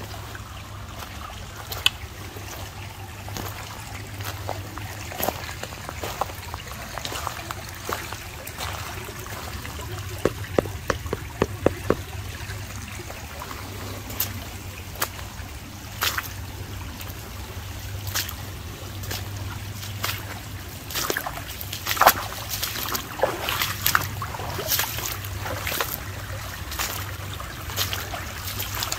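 Shallow creek water trickling, with irregular sharp clicks and small splashes: a quick run of them about a third of the way through, and more often toward the end.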